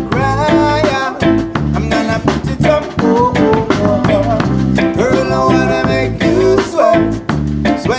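Live reggae band playing: electric guitar over a steady beat, with a man singing a melody at the microphone.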